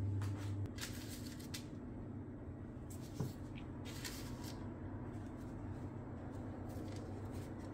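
Soft rustles and light taps as sliced phyllo-pastry rolls are set down one at a time on baking paper in a baking tray, a few separate handling noises over a low steady hum.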